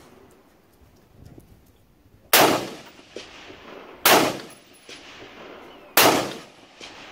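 AR-15-style carbine fired three times, one sharp shot about every two seconds, each with a short echoing tail.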